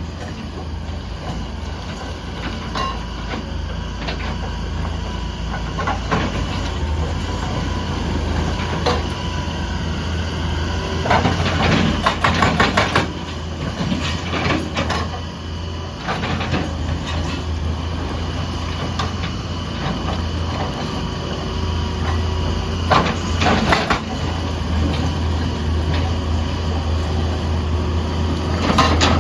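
Excavator's diesel engine running steadily with a low rumble. Bursts of clattering rock knocks come about a third of the way in, again past two-thirds, and once more near the end.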